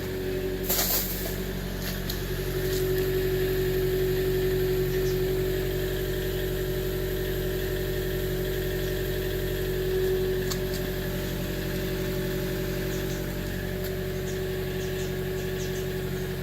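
2013 Chevy Volt's 1.4-litre four-cylinder range-extender engine running at a steady idle, swelling slightly a couple of times; the owner reports a very bad idle and a misfire that new plugs and a coil pack have not cured. A sharp click about a second in.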